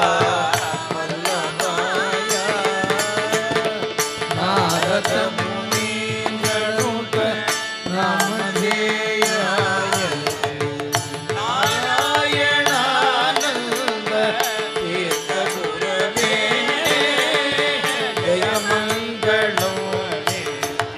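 Divyanama sankeerthanam devotional music in Carnatic style: a wavering melody over a steady drone, with percussion keeping time.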